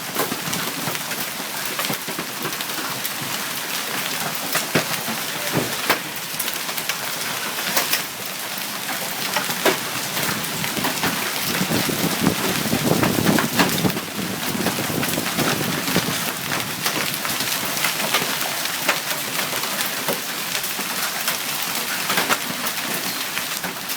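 Hailstorm with heavy rain: a dense, steady clatter of hailstones and raindrops striking surfaces, with many sharp individual hits. A low rumble swells about halfway through.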